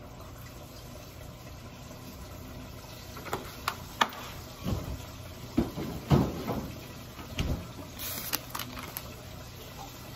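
Kitchen clatter: a run of short knocks and thumps, starting about three seconds in and spread over some six seconds, over a steady low hum.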